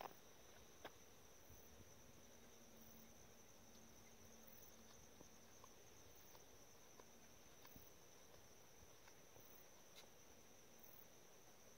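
Near silence with the faint, steady high chirring of insects, and a few faint clicks.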